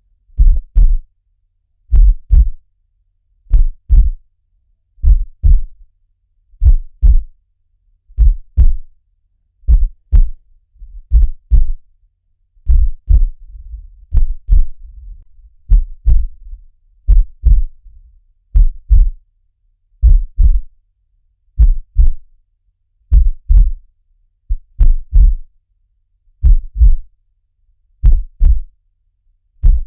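Heartbeat sound looped: a low double thump, lub-dub, repeating steadily about every second and a half.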